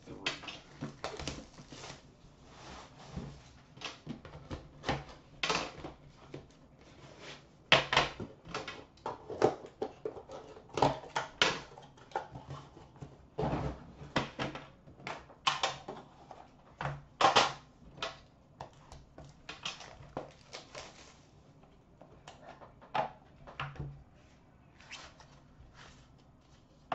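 Hands unwrapping a shrink-wrapped hockey card box and opening its metal tin: irregular clicks, crinkles and scrapes of plastic wrap and the tin's lid and box being handled.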